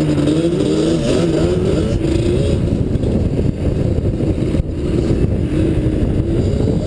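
ATV (quad bike) engine heard from on board while riding, its note wavering up and down with the throttle over a steady low rumble.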